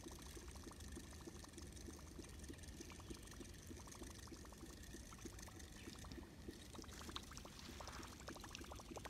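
Whopper Plopper topwater lure being retrieved across the water, its spinning tail making a faint, steady plopping, gurgling churn with fine rapid ticking.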